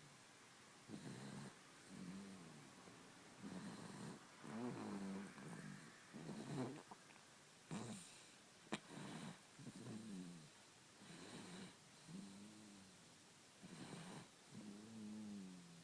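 A baby snoring in its sleep: a short, pitched snore on nearly every breath, roughly one a second in an uneven rhythm. One sharp click comes a little past the middle.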